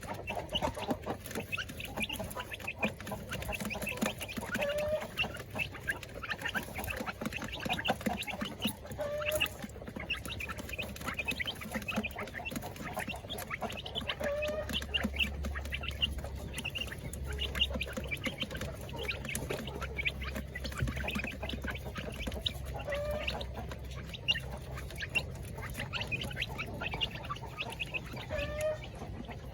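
A flock of kampung chickens and laying hens clucking, many short calls overlapping, with a few louder rising calls. A low steady hum comes in about halfway through.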